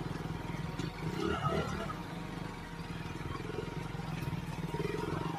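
Motorcycle engine running steadily while being ridden slowly along a rough dirt track, with a brief louder patch about a second in.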